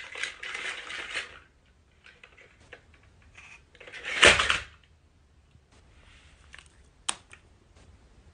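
A battery-powered toy dinosaur clicking and clattering on a wooden floor, with a louder burst of noise about four seconds in and a single sharp click about seven seconds in.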